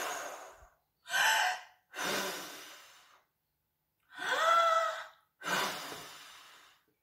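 A woman blowing hard in long puffs that fade out, with loud gasping in-breaths between them, one of them voiced about four seconds in. She is acting out the big bad wolf huffing and puffing at the house.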